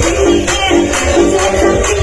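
Loud electronic dance music played through a 'sound horeg' carnival speaker system: a steady beat of about two strokes a second over heavy bass, with a repeating melodic figure.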